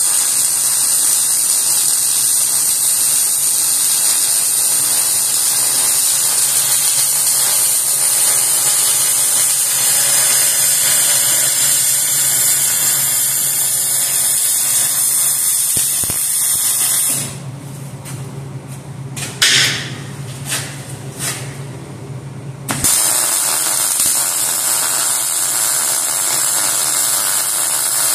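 Electric arc welding on steel: the arc's steady hiss, breaking off for about five seconds past the middle, where a few short clicks are heard, then starting again.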